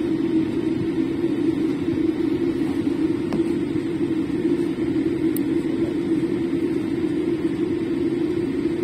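Steady low cabin drone inside a Boeing 787-8 airliner as it taxis after landing.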